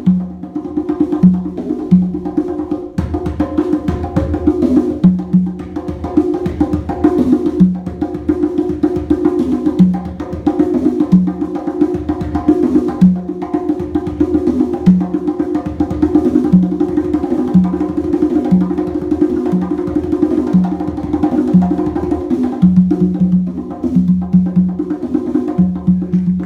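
Conga drums played by hand in a solo: a dense, driving run of strokes, with the ringing tones of two drums tuned to different pitches recurring throughout.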